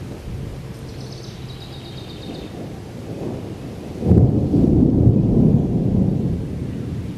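Thunder: a low rumble builds, then a loud peal breaks suddenly about four seconds in and rolls on for about three seconds, fading.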